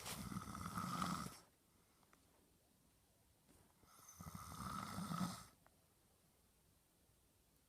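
A man snoring in his sleep: two long snores, each lasting about one and a half seconds, about four seconds apart, with quiet breathing between them.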